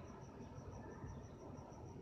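Cricket chirping in a steady, even rhythm of about eight short high pulses a second, over a low rumble.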